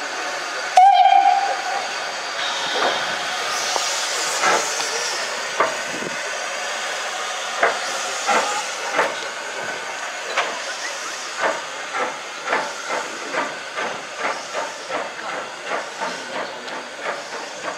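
A steam locomotive's whistle blows briefly, followed by a hiss of steam, then the exhaust beats of LMS Jinty 0-6-0 tank engine 47406 working steam, the beats steadily quickening as it gets under way.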